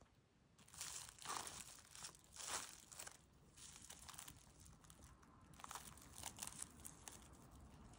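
Plastic cling wrap crinkling as cling-film-wrapped filled bread sandwiches are picked up and handled: a cluster of louder crinkles in the first few seconds, then lighter, scattered ones.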